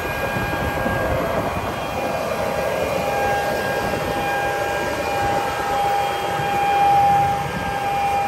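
A John Deere tractor pulling a John Deere row-crop planter through a field: a steady engine drone with a steady high whine over it, getting louder about seven seconds in as it passes closest.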